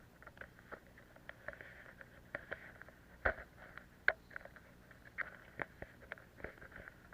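Grimme SE 260 potato harvester at work, heard faintly: irregular light clicks and rattles over a faint steady low hum.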